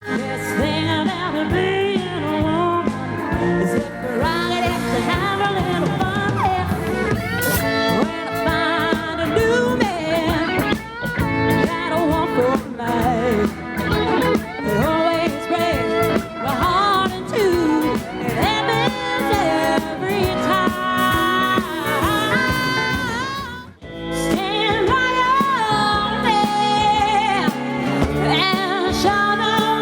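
Music with a singing voice over instruments, dropping out briefly about three-quarters of the way through.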